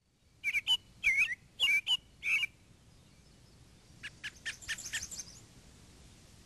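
Birds chirping: a few loud, separate chirps in the first two and a half seconds, then a quicker, fainter run of chirps about four seconds in, over faint background hiss.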